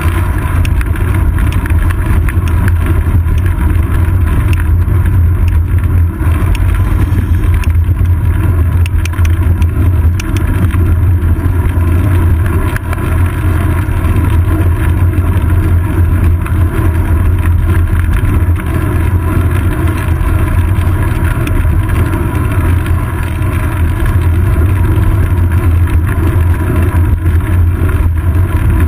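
Steady, loud low rumble of wind buffeting and road vibration on a bicycle's seat-post-mounted GoPro Hero 2 while riding, with small ticks here and there.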